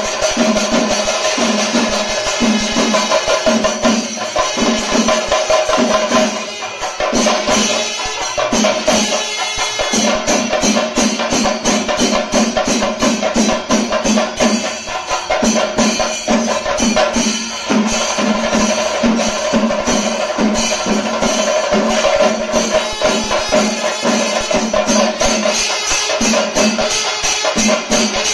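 Kerala chenda drums beating a fast, continuous rhythm with ringing cymbal strokes, over a steady held tone.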